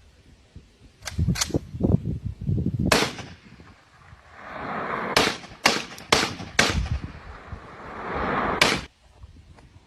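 Gunshots from a firearm fired skyward at a drone: about eight shots at an uneven pace, two close together near the start, one about three seconds in, a quick run of four in the middle, and a last one near the end.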